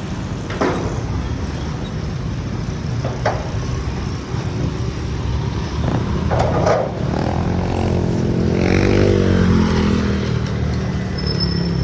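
Road traffic: motor vehicles running past on the road, one engine passing closest and loudest about two-thirds of the way through.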